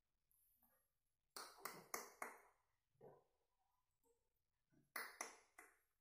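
Sharp clicking taps in two quick runs: four about a second and a half in, then another three or four shortly before the end, with a softer single click between them.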